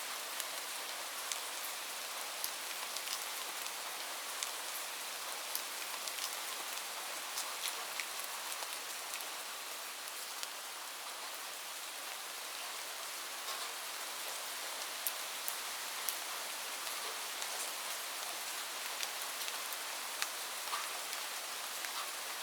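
Light rain falling steadily: an even hiss with many scattered, distinct drop ticks.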